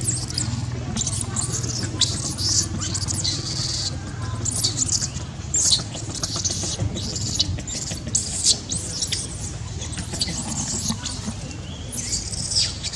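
Baby macaque crying in repeated short, high-pitched squeals and screams, the distress cry of an infant being handled roughly by its mother, over a steady low hum.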